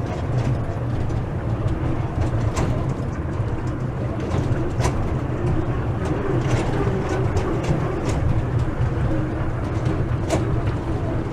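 Small theme-park train ride running: a steady low rumble with irregular sharp clacks and rattles.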